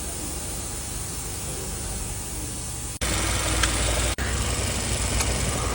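Steady background hiss, then after an abrupt cut about three seconds in, a louder, steady low hum of a car engine idling.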